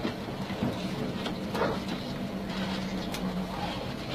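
A large vehicle's engine running steadily at low speed, heard from inside its cab, with a few knocks and rattles as it crawls over a rough dirt road.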